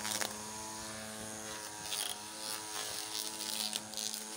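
Electric string trimmer motor running at a steady pitch, with a few brief crackles as the spinning line hits grass.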